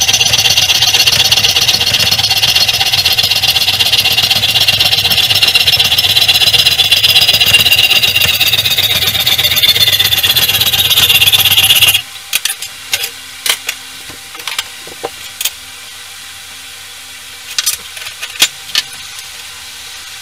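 An electric power tool grinding the hardened steel of an old file, giving a loud, high whine whose pitch falls over the last couple of seconds before it cuts off suddenly about twelve seconds in. After that come light, scattered clicks of small steel pieces being handled on the bench.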